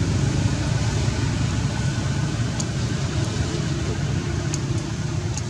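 Steady low rumble of outdoor background noise, with a few faint high ticks in the second half.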